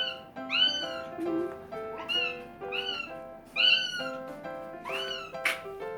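A domestic cat meowing over and over, about six short meows that each rise and fall in pitch, begging for a treat. Background music with sustained notes plays underneath.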